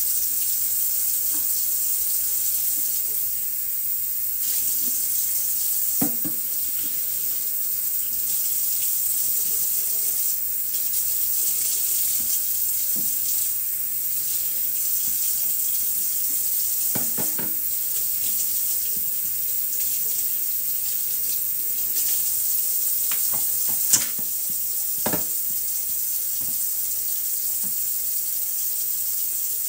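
Kitchen tap running steadily into a sink while a soap dispenser is rinsed out under it, with a few short knocks against the sink.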